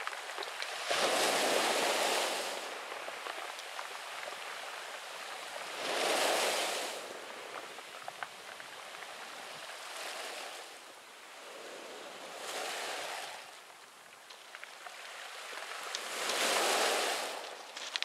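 Small waves breaking on a pebble beach: five swells of rushing surf, each rising and falling over a second or two, a few seconds apart, with faint clicks of pebbles between them.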